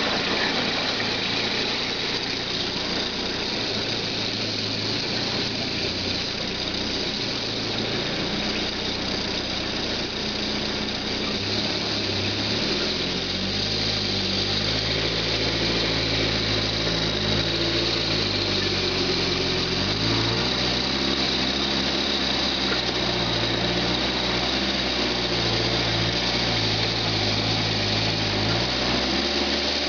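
Engine of a home-built forest forwarder running steadily as the machine drives and turns over rough ground, its note stepping up and down in pitch from about halfway through.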